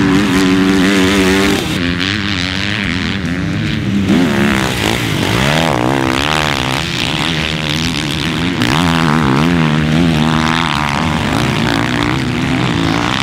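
2021 Kawasaki KX450 motocross bike's single-cylinder four-stroke engine being ridden hard on track, revving up and down as the throttle opens and closes, its pitch rising and falling several times.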